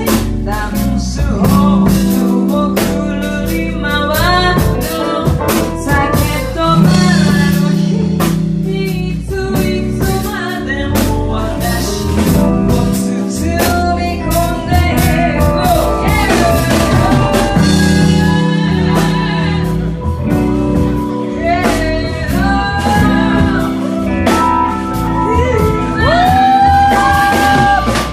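A live band playing: a drum kit keeping time under held bass notes, with guitar and a lead melody line that slides up and down in pitch.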